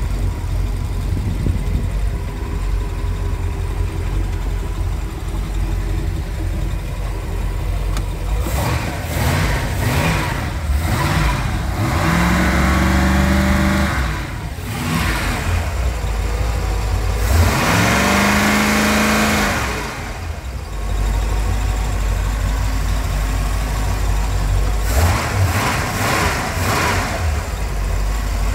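Mastercraft ski boat's carbureted inboard V8 idling, then revved several times: a few quick blips, a longer rev held for a couple of seconds about twelve seconds in and another about eighteen seconds in, each falling back to a steady idle, with more short blips near the end.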